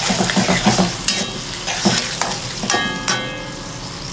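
Onions and dried shrimp in a dark soy-and-oyster sauce sizzling in a steel wok, with a metal spatula scraping and clinking against the wok a few times as it is stirred.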